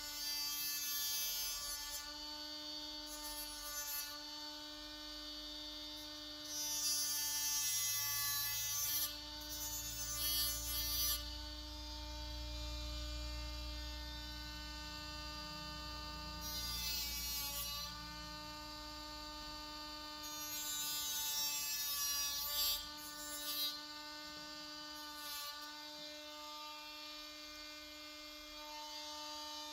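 Small cordless angle grinder running with a steady whine, its disc biting in and out against the grille in several grinding bursts of a few seconds each. The motor keeps spinning with no contact near the end.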